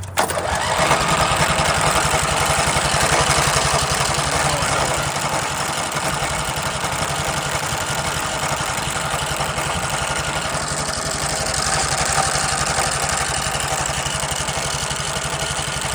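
The 19 hp Briggs & Stratton twin-cylinder engine of a 1999 Sears Craftsman lawn tractor catches and then runs steadily. It starts abruptly and is a little louder for the first few seconds. This is the engine that has been stalling and coughing oil and gas out through its breather toward the air filter.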